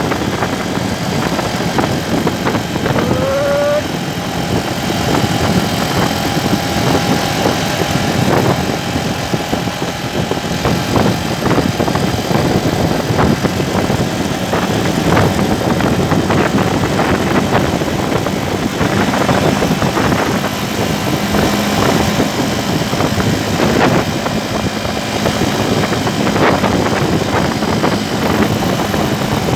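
Car driving along a highway: steady engine hum and road noise.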